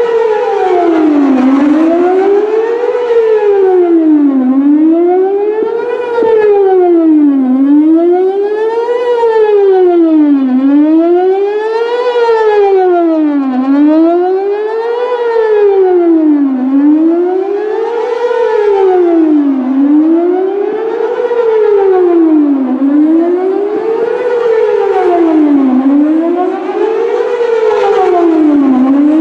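Whelen WPS-4008 electronic outdoor warning siren sounding a wavering tone in a scheduled test, its pitch gliding up and down about once every three seconds.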